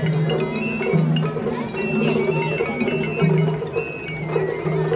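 Japanese festival float music (matsuri-bayashi): a small metal hand gong clanging rapidly, with short high flute notes over a held lower tone.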